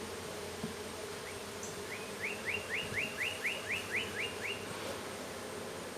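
Honeybees buzzing steadily around an open, crowded hive. A bird sings a quick run of about ten rising chirps, about three a second, in the middle.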